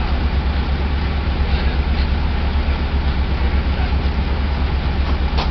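Diesel locomotive engine idling with a steady low throb.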